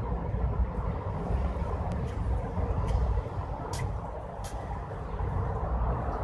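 Steady low rumbling noise, with a couple of faint clicks a little past the middle.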